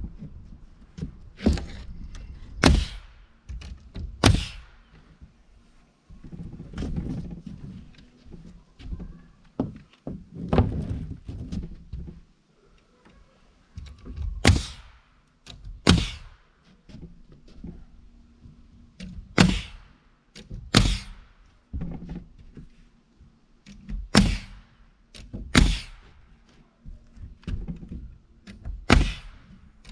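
Pneumatic framing nailer firing nails into 2x4 wall studs: a dozen or so sharp shots, many in pairs about a second and a half apart, with handling noise between and a faint steady hum underneath.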